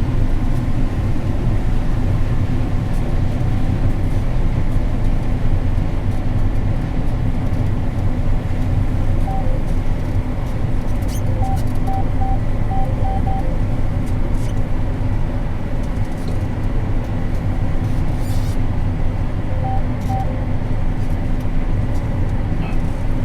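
Combine harvester running steadily under load while harvesting corn, a constant low drone heard from inside the cab. A few faint short beeps sound over it, once about nine seconds in, as a quick string a few seconds later, and twice more near the end.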